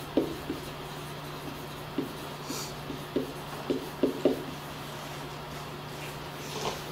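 Marker writing on a whiteboard: irregular short squeaking strokes as words are written by hand, over a steady low hum.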